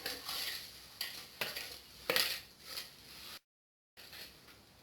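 Egg yolks and sugar being beaten by hand in a steel bowl, the utensil scraping and clinking against the metal in irregular strokes. The sound drops out to dead silence for about half a second some three and a half seconds in.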